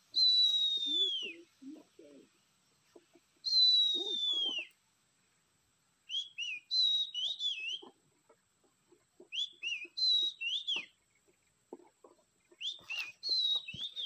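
Oriental magpie-robin (kacer) whistled song: two long, clear whistles sliding downward, then three bursts of shorter rising-and-falling phrases.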